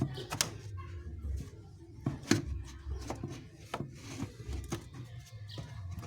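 Scattered sharp clicks and light knocks of hand tools and parts being handled, over a low steady hum.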